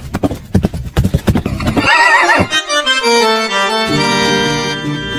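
Horse hoofbeats clattering for about two seconds, then a wavering horse whinny, followed by a short logo jingle of held notes that step in pitch.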